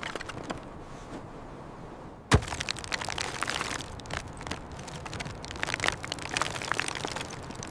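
A single sharp crack about two seconds in, followed by scattered small clicks and crackles.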